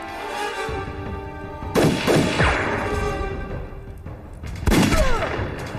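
Two loud gunshots about three seconds apart, the second followed by a falling whine, over background music.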